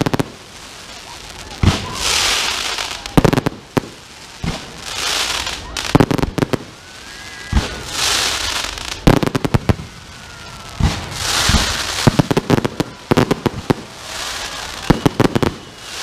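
Aerial fireworks going off: clusters of sharp bangs every few seconds, alternating with stretches of hiss as the shells rise and their stars burn out.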